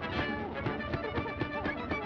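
Lively cartoon background music with quick, clipped notes.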